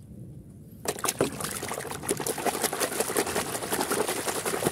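Muddy water splashing and sloshing in a plastic basin as a hand scrubs a plastic toy tanker truck in it. It starts about a second in and goes on as a dense run of small splashes.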